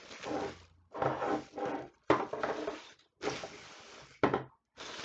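Plastic containers and craft supplies being handled and moved around: rustling and scraping in bursts of about a second, with a sharp clack about two seconds in and another near four seconds.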